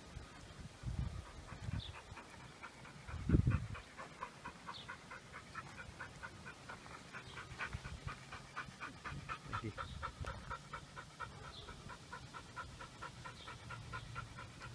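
A dog panting quickly and evenly, about four breaths a second, close to the microphone. Two low thumps come about one and three seconds in.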